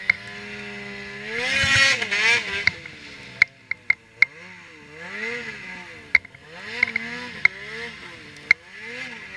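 Ski-Doo Freeride 800 snowmobile's two-stroke engine revving up and down repeatedly as it ploughs through deep powder. A rushing hiss swells twice, and sharp clicks come scattered throughout.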